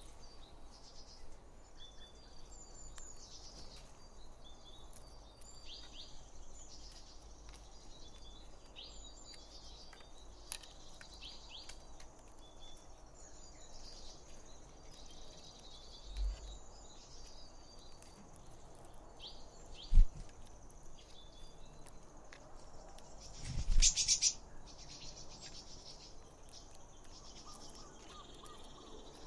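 Birds chirping over a steady high insect drone in forest, with three dull thumps as wooden shelter poles are handled, the sharpest about two-thirds of the way through and the last followed by a brief rustle.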